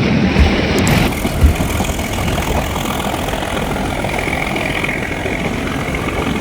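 Nilgiri Mountain Railway narrow-gauge train running, heard from inside the carriage as a steady rumble and hiss. Wind buffets the microphone at first, with two low thumps in the first second and a half.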